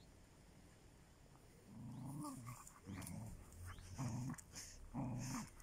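Two dogs play-fighting, growling in short low bursts about once a second, starting about two seconds in: rough-and-tumble play, not a real fight.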